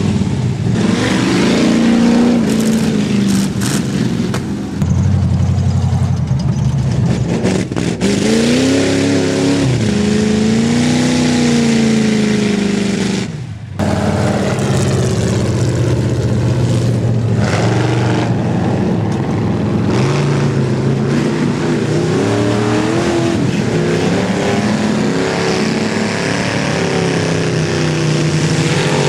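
Off-road truck engines revving hard, the pitch rising and falling in long swells, with a sudden break about halfway through where one engine gives way to another.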